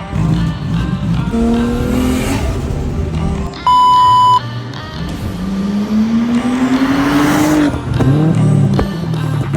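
A car engine revving in rising pitch sweeps over background music, with a loud, steady single-pitch beep lasting under a second a little before the middle.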